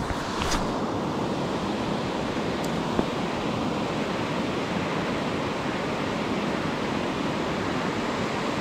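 Steady rush of river water spilling over low rock ledges, with a couple of faint clicks in the first three seconds.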